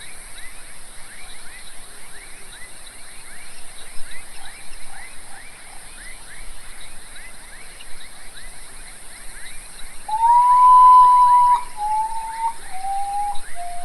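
Common potoo (urutau) singing its mournful song: a long whistled note followed by three shorter ones, each lower in pitch, starting about ten seconds in. Behind it runs a steady chorus of quick repeated chirps, about four a second, and a high hiss.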